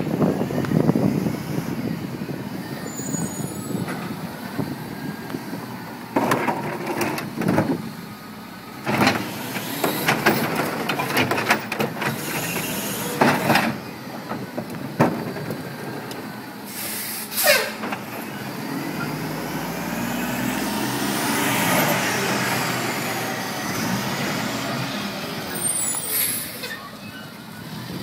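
Front-loader garbage truck running at the curb, with an air brake hiss at the start and again near the end, and several loud bangs as a recycling cart is emptied into the yellow carry can on its forks. Later the engine note rises as the truck pulls away.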